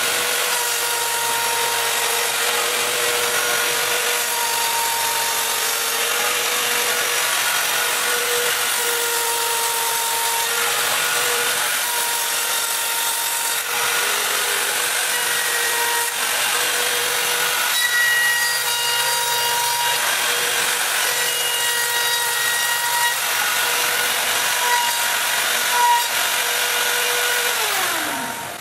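Home-built CNC router's spindle running with a steady high whine as its router bit cuts the bevel pass into a masonite sheet, with shorter, higher whines coming and going as the machine's axes move. Near the end the spindle is switched off and its pitch falls as it winds down.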